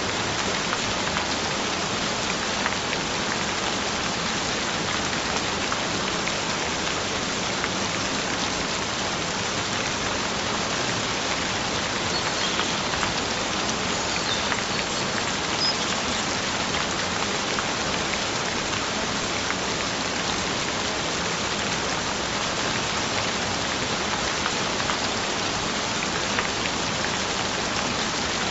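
Steady, gentle rain falling on a surface, an even hiss with fine scattered patter of drops.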